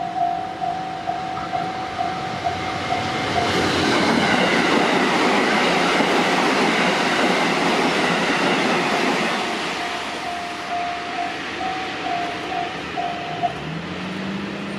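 Japanese level-crossing warning bell ringing in a steady, regularly pulsing ding. A train passes over the crossing and its running noise drowns the bell for about six seconds. The bell is heard again after the train and stops near the end, followed by a rising hum.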